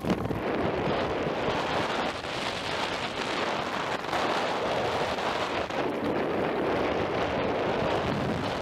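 Seven Dwarfs Mine Train roller coaster running at speed through curves: a steady rushing noise of wind across the microphone mixed with the train rolling along the track.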